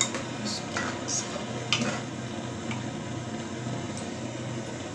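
A metal spoon stirring curry in an aluminium pressure cooker, with a few light clicks and scrapes against the pot over a steady low hum.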